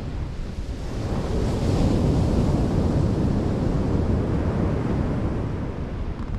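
Ocean surf washing on the beach, with wind buffeting the microphone in a steady low rumble that swells a little a couple of seconds in.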